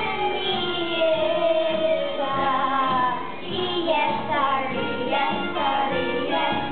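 Children's voices singing a show tune over musical accompaniment.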